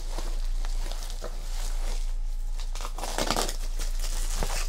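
Packaging being handled and crinkled, with irregular crackles and light knocks and no steady rhythm.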